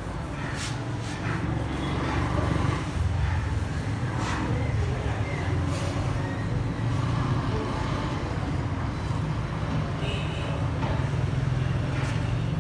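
A motor running steadily with a low rumble, with a few short knocks over it.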